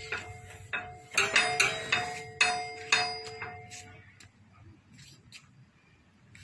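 Repeated sharp metallic strikes, several in quick uneven succession, each leaving a ringing tone, dying away about three and a half seconds in.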